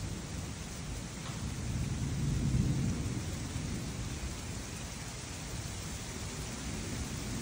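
Steady rain falling through a thunderstorm, with a low roll of thunder that swells and fades about two to three seconds in.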